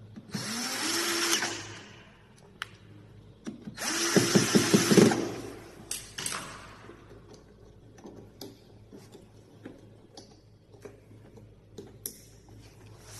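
A small electric motor whirs in two short bursts, the second one louder, with clicks and knocks of handling between and after.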